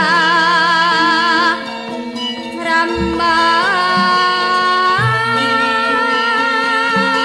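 Javanese gamelan music: a female sindhen singer holds a long, wavering line with vibrato over the ringing bronze instruments, with a few low struck notes under it.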